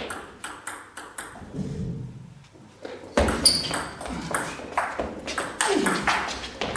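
Table tennis rally: the celluloid ball clicks sharply off the players' bats and the table in quick alternation. There is a louder thud about three seconds in.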